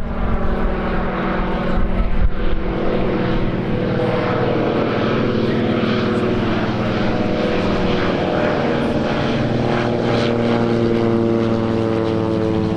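Grumman Goose twin-engine amphibian flying past, its propeller engines making a steady drone whose pitch slowly falls.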